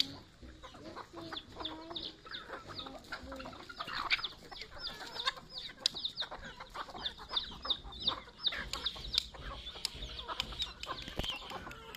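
A flock of native chickens feeding: hens clucking low while chicks peep over them in a continuous string of short, high calls, several a second. Light taps of beaks pecking feed off concrete run through it.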